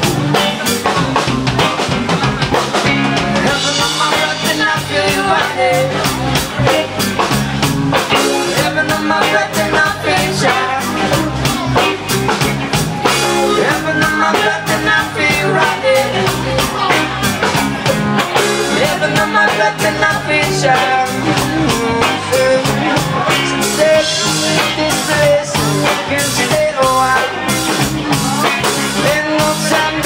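Live band music: guitar and drum kit playing a rock groove with a steady beat.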